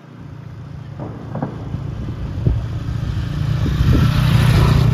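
A motor vehicle's engine running and growing steadily louder as it approaches, with tyre and road hiss rising toward the end.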